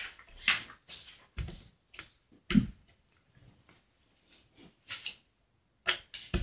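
Hands handling a plastic Play-Doh tub and dough on a tabletop: a string of irregular knocks and taps, the loudest about half a second and two and a half seconds in.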